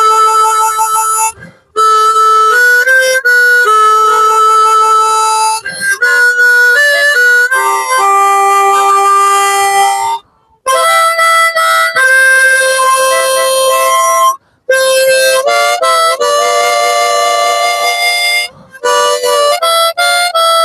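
Harmonica playing a melody solo, with held notes, often two or three sounding together. It breaks off briefly a few times between phrases.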